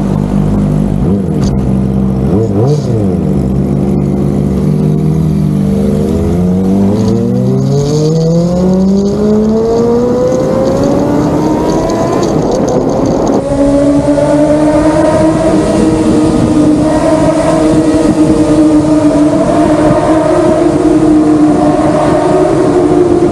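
High-revving Kawasaki ZX-25R 250 cc inline-four engines with aftermarket exhausts (an Akrapovic slip-on and a cat-delete pipe). There are a couple of quick rev blips near the start, then the revs climb steadily for several seconds. From about halfway through the engines are louder and held at high revs, the pitch wavering.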